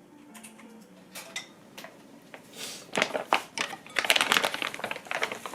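Kitchen handling sounds: a run of quick clicks, taps and crinkling, busiest from about three seconds in.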